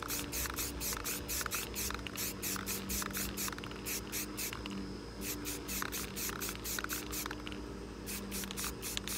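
Aerosol spray-paint can (Rust-Oleum 2X gloss) being shaken hard, its mixing ball rattling about three times a second, with short pauses around halfway and near the end. The shaking mixes in the primer that settles out of the 2X paint.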